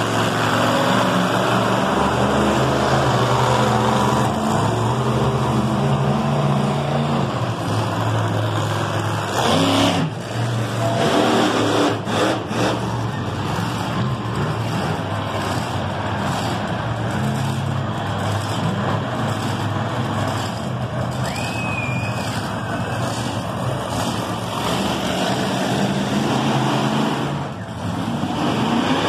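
Monster truck engine running loudly, its pitch shifting up and down as the truck drives.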